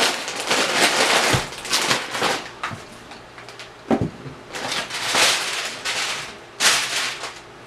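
Close-miked chewing and lip-smacking on rotisserie chicken with crisp, slightly burnt skin, in three noisy spells with short pauses between them.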